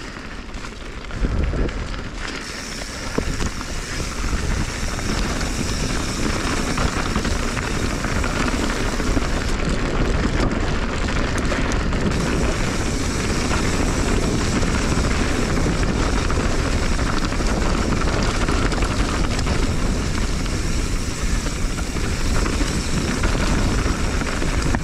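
Wind rushing and buffeting over the microphone, mixed with mountain-bike tyres rolling on a dirt and shale singletrack and the rattle of the bike, as the rider descends. The noise builds over the first few seconds as the bike picks up speed, then stays loud and steady.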